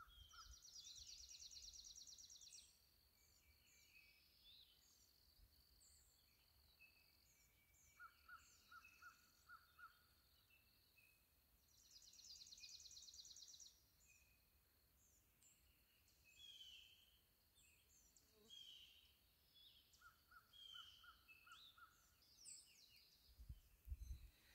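Faint birdsong from several birds: scattered high chirps and calls, a rapid high trill lasting about two seconds near the start and again about halfway, and twice a short run of lower, evenly repeated notes.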